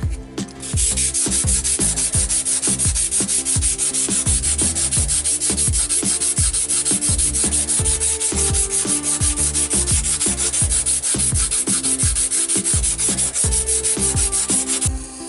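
Sanding block rubbed quickly back and forth over a Depron foam piece, a fast, steady run of rasping strokes that starts about a second in and stops shortly before the end.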